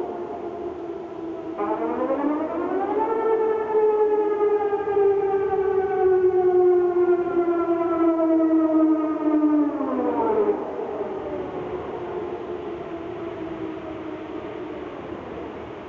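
Danish civil defence warning sirens sounding across the city. One siren rises in pitch about a second and a half in, holds a slowly sinking tone for about seven seconds, then falls away about ten seconds in, while fainter, more distant sirens keep sounding.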